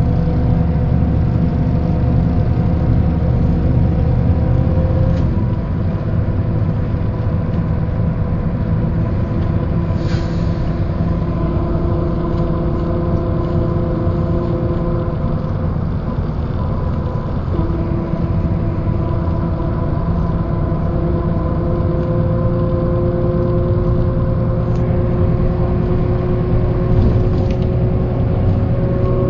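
Mercedes-Benz O408 bus on the move, heard on board: the OM447hLA diesel engine rumbling, with steady drivetrain whines that slowly rise in pitch, typical of its hub-reduction rear axle. The low engine rumble eases about five seconds in.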